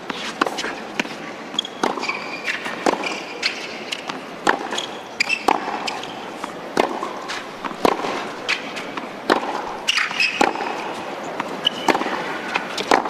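Tennis rally on a hard court: tennis ball struck by rackets and bouncing on the court, a sharp knock every half second to second, with short high squeaks of sneakers on the court between the shots.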